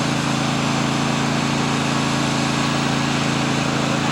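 Small engine of a riding lawn mower fitted with a snow plow blade, running steadily at a constant speed.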